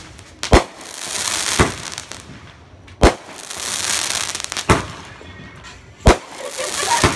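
Aerial fireworks going off in quick succession: six sharp bangs about one to one and a half seconds apart, each followed by a second or so of high hissing crackle as the shot bursts.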